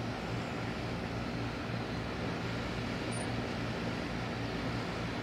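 Steady background noise with a low, even hum underneath and no distinct events.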